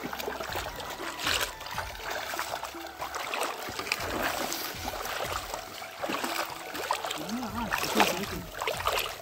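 Splashing and sloshing of floodwater as people wade through it dragging a fishing net, with dry grass stalks rustling and scraping close by, louder about a second in and near the end.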